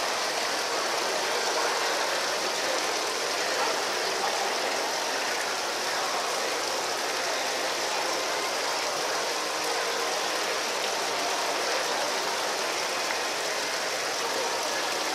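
Water from a rock-ledge fountain splashing steadily down its stone tiers into a pool.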